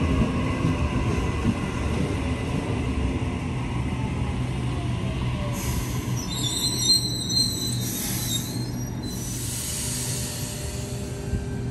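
Passenger train running through the station with a steady rumble. A faint falling whine comes about four seconds in, and high-pitched wheel squeal from the wheels on the rails runs for about three seconds past the middle.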